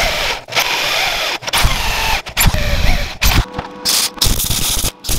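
A power drill boring through steel angle iron, then a wire-feed (MIG) welder crackling in short runs as drawer slides are welded to the angle iron. The sounds come in stretches that cut off abruptly several times.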